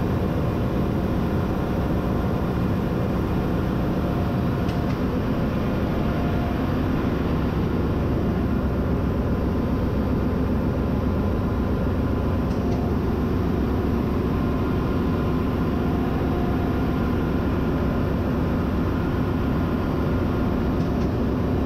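Steady engine-room machinery noise: a constant low drone and hum with a few faint steady tones, unbroken throughout.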